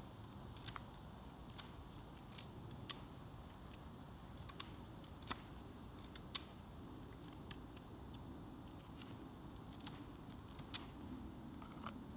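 Small campfire of twigs and sticks burning: a steady low rush under sharp, irregular crackles and pops, about one a second.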